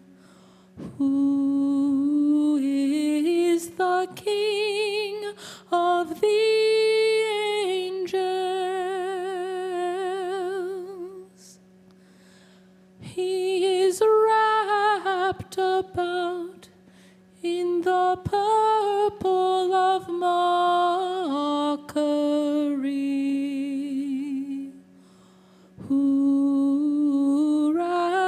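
A solo voice singing a slow, drawn-out hymn with strong vibrato, in long phrases broken by two short pauses, over a steady low drone.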